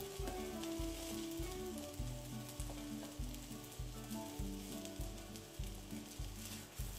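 An egg and wild garlic omelette sizzling in a nonstick frying pan as a wooden spatula works it. Under it runs background music, a steady beat of low plucked notes about every half-second.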